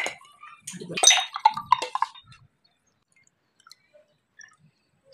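A sharp click at the start, then a short animal call of several pitched notes about a second in, after which it falls quiet.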